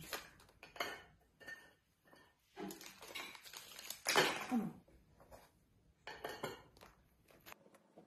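Kitchen clatter: a string of knocks and clinks of dishes and utensils on the counter. The loudest burst comes about four seconds in, with a short scrape, and a last few clinks follow about two seconds later.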